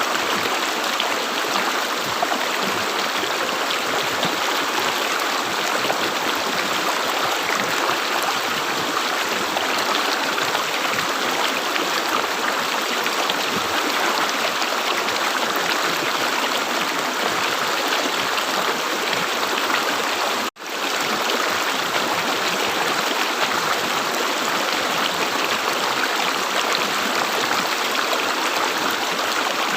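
Flowing stream water gurgling and babbling, steady and continuous. It cuts out suddenly for a split second about two-thirds of the way in, then resumes.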